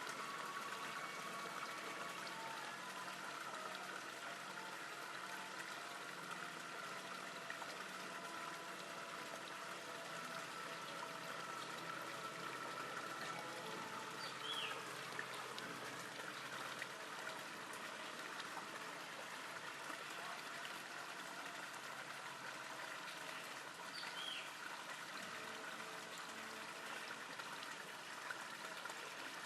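Steady running water, with two brief high chirps from a small bird, one about halfway through and one near the end.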